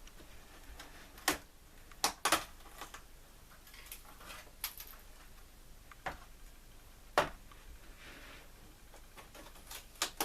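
Scattered sharp clicks and knocks of model railway layout pieces being handled and set down, about six in ten seconds with pauses between.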